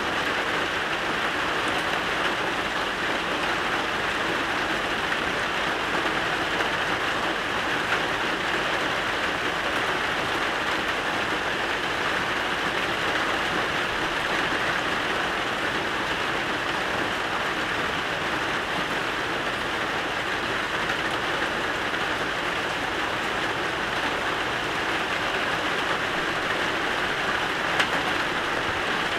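Steady rain falling, an even hiss of drops on surfaces with no let-up, and one small tap near the end.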